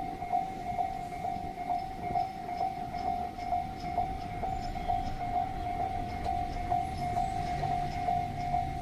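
Japanese level-crossing alarm ringing its repeated electronic bell, about two strokes a second, while the crossing is closed for an approaching freight train. A low rumble runs underneath and grows louder near the end.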